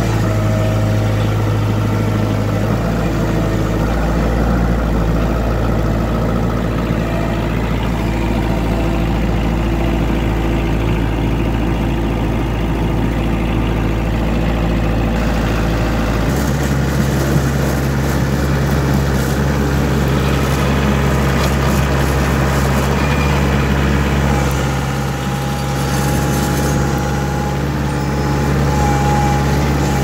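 Kioti compact tractor's diesel engine running steadily, its pitch stepping up about halfway through as the revs rise.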